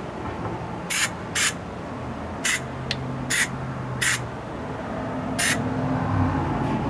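Aerosol can of spray-on truck bed liner hissing in about six short, unevenly spaced bursts, each a fraction of a second long, with a low steady hum underneath.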